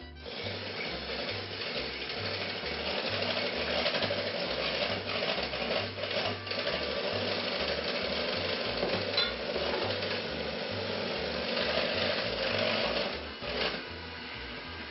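Electric mixer running steadily as it whips cream in a bowl, cutting off near the end.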